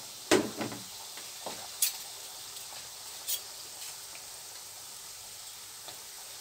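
Yoyo dough rings deep-frying in hot oil in a pan: a steady sizzle, with a few short clicks and a knock about a third of a second in, then more sparse clicks over the next few seconds.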